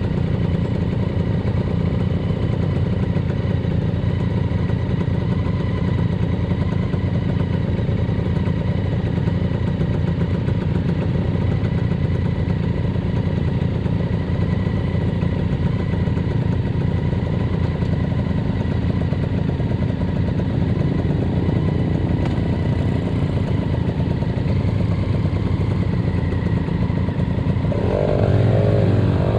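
Yamaha SS motorcycle engine running steadily under way, with a dense low rumble. Near the end it gets louder and the engine note rises and falls as the bike revs.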